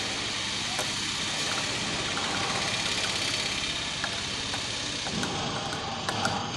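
Steady engine-like running noise in the background, with a few faint light clinks of a stirrer against a glass beaker as potassium permanganate is stirred into water.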